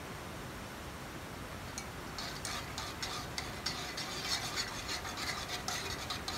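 Wire whisk beating milk pudding in a pot, its wires scraping and rubbing against the pot in quick repeated strokes. The strokes start about two seconds in, after a faint steady hiss. The pudding is being whisked continuously as it heats and thickens, to keep it from lumping.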